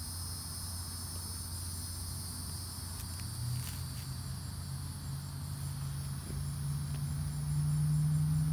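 Steady, high-pitched outdoor insect chorus. A low steady hum joins about three and a half seconds in and grows louder through the second half.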